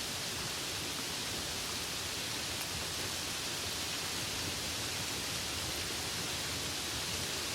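Steady rain falling: a dense, even hiss with no distinct drops or thunder.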